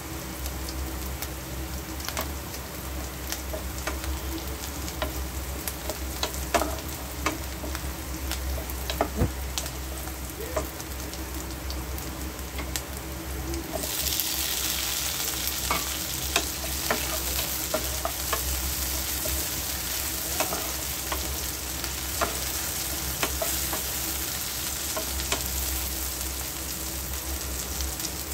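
Food frying and sizzling in a pan while a spoon or spatula stirs it, with scattered sharp clicks and scrapes against the pan. About halfway through the sizzle suddenly becomes louder and hissier and stays that way.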